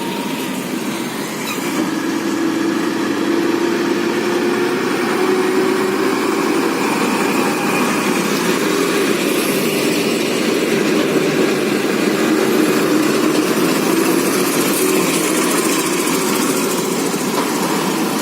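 Heavy vehicle engine running steadily: a droning note that wavers slowly in pitch over a constant noisy hiss.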